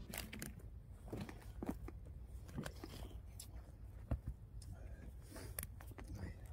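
Digging in garden soil: irregular crunches and scrapes of a tool going into the earth, as planting holes are dug.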